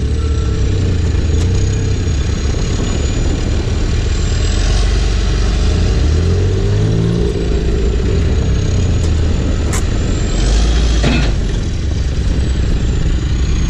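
John Deere 310SJ backhoe's diesel engine running steadily, its pitch lifting and settling a little around the middle, with a thin high whine that slowly glides up and down. A few short clicks sound over it.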